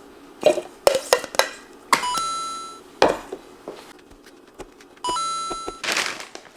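Kitchen clatter: a scattering of clicks and knocks of dishes or utensils, with a ringing clink of metal or glass about two seconds in and again about five seconds in, each dying away over roughly a second.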